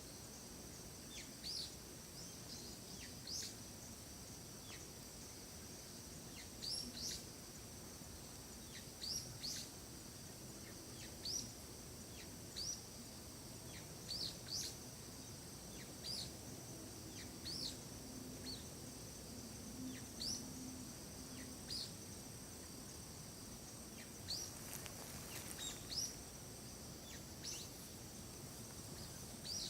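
Forest ambience: a bird repeating short, high, upward chirps every second or two over a steady high insect drone.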